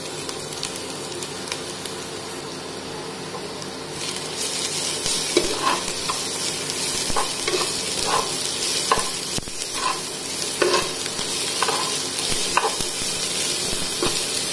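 Chopped onions and ginger-garlic paste sizzling in hot oil in a nonstick frying pan, frying to cook off the raw taste of the ginger and garlic. The sizzle grows louder about four seconds in, and from about five seconds a spatula scrapes and stirs them in irregular strokes, roughly one a second.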